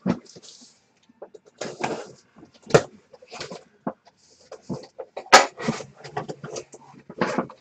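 Cardboard box being opened by hand: a knife slitting the packing tape, then the flaps pulled open and handled, a series of short scratchy rasps and clicks. A sharp knock about five seconds in is the loudest sound.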